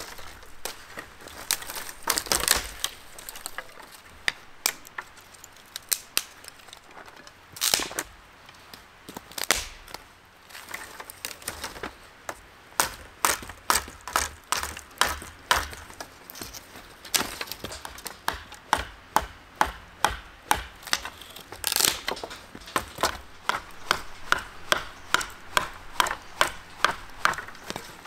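Fixed-blade knife chopping dry branches: sharp woody chops, scattered at first, then a steady run of about two a second through the second half.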